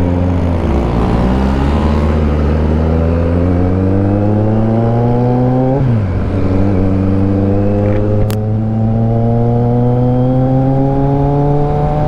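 2022 Kawasaki Z900's 948 cc inline-four engine pulling under acceleration. Its pitch climbs steadily, drops sharply at an upshift about six seconds in, then climbs again until another shift at the very end.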